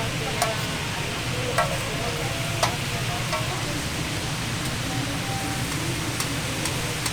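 Steady frying hiss of patties cooking on a hot grill, with a few sharp metal clinks of utensils and a low hum underneath.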